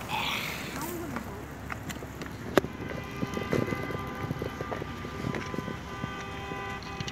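A car's rear passenger door opening, with a sharp latch click about two and a half seconds in, followed by knocks and rustles as a child climbs onto the back seat.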